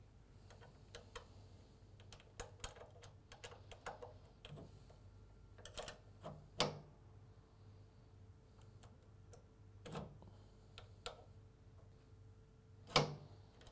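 Small metal clicks and ticks of an Allen key and spanner working the fixings of a mower's belt tensioner, taking the tension off the drive belt. Louder knocks come about halfway through and again near the end, as the metal parts of the tensioner bracket are handled.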